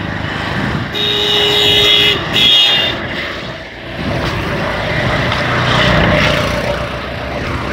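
Road vehicle noise with an engine running and tyres rushing. A vehicle horn sounds twice about a second in, one blast of about a second and then a shorter one. The noise swells again a few seconds later.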